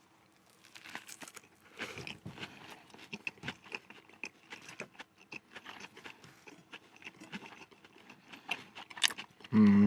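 People biting into and chewing a chicken grill burger: irregular soft crunching and mouth sounds close to the microphone.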